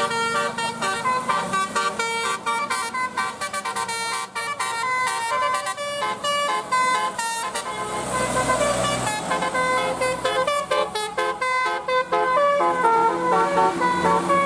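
Tour bus telolet horn of the Basuri type playing a quick melody of short, stepped notes, sounding without a break.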